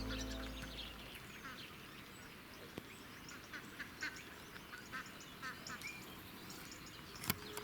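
Ducks calling faintly, a scattered series of short calls with gaps between them.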